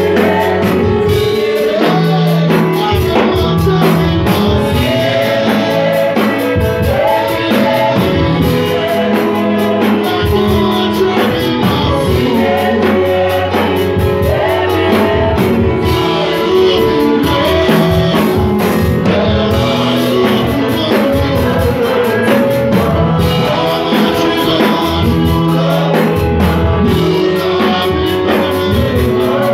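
Live gospel worship music: women singing into microphones over keyboard and drum kit accompaniment, amplified through the church PA, with steady bass notes and a continuous beat.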